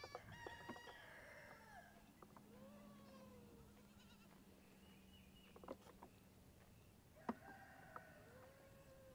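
Young goat kids bleating faintly, several short arching calls, with a few sharp knocks from hooves on the wooden play ramp and platform.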